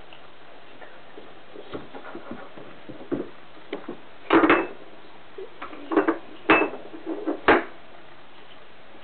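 Clatter of kitchen utensils and bowls: scattered small knocks and clinks, with several louder ones clustered in the second half, a couple ringing briefly.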